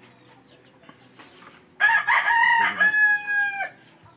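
A rooster crowing once, about two seconds in, ending on a long held note.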